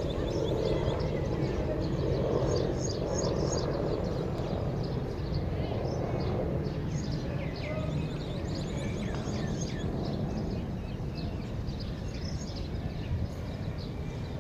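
Many small birds chirping, with short calls and some falling whistles, over a steady low outdoor rumble.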